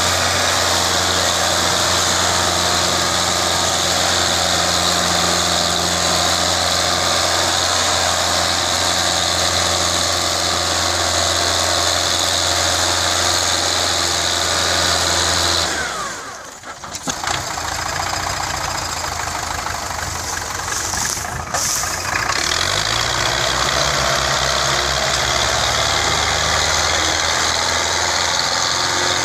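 Tractor diesel engines labouring under heavy load, running steadily with a sharp dip about halfway through. After the dip an engine's pitch rises and falls near the end.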